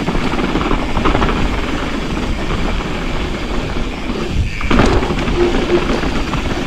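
Mountain bike riding down a dirt trail: wind rushing over the microphone and the tyres and bike rattling over the rough ground, with a heavier knock about five seconds in.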